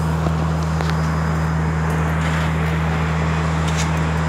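Construction-site machinery running with a steady low hum, unchanging throughout, with a few faint ticks over it.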